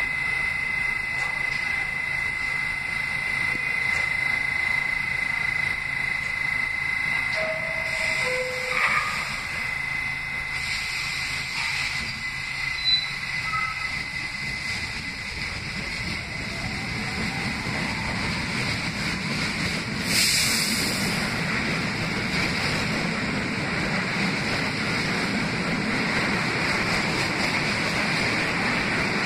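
New York City subway N train arriving along the platform. Its rumble builds as it draws near and runs steadily as the cars pass close by. A steady high whine is heard early on, and a brief hiss comes about twenty seconds in.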